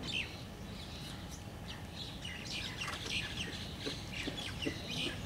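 Wild songbirds chirping and twittering: many short, high chirps that come one after another.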